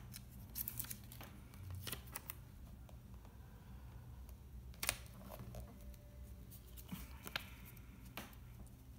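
Paper stickers being peeled from their backing and pressed onto an album page: faint rustles and a handful of short, sharp paper snaps scattered through, the sharpest about halfway in, over a steady low hum.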